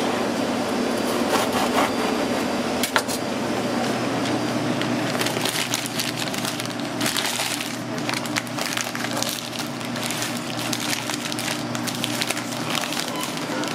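Sheet of deli paper crinkling and rustling as a hoagie is wrapped in it, over a steady low hum, with a sharp click about three seconds in.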